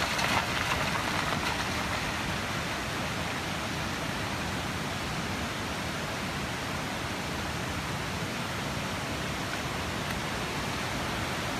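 Steady rushing of a rocky mountain stream, an even hiss of water with no distinct events.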